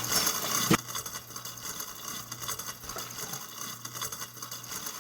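Trash rattling and scraping in a kitchen sink, louder for the first moment, ending in a sharp click, then a softer rustle.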